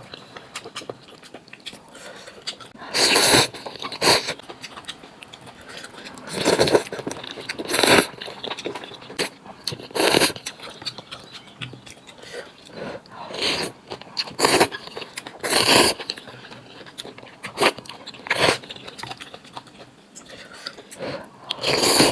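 A person eating the spicy mushroom noodles: slurping and chewing in short loud bursts every second or two.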